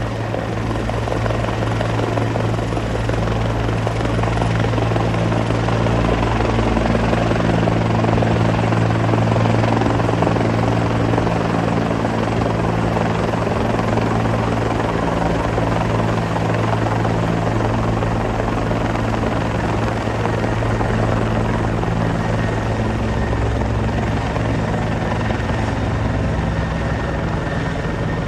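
Helicopter flying low overhead: a steady, loud rotor and engine noise with a strong low hum, swelling a little over the first several seconds as it comes nearly overhead, then holding.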